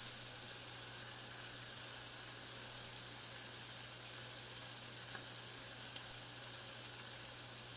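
Chicken pieces frying in hot oil in a cast-iron skillet, giving a steady, faint sizzle as they brown on their second side, with a couple of small pops about five and six seconds in.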